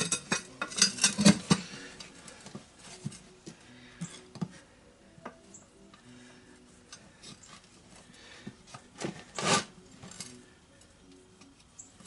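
Steel tire iron clinking and scraping against a steel ATV wheel rim as the tire bead is levered on by hand. A quick cluster of clinks in the first second and a half, then scattered light taps, with one louder clank about nine and a half seconds in.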